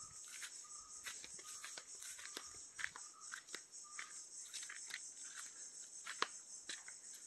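Steady high-pitched insect chorus, with scattered short clicks and brief chirps over it; a sharp click about six seconds in is the loudest.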